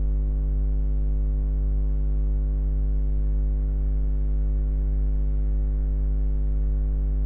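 Steady low electrical mains hum with a stack of even overtones, unchanging in level.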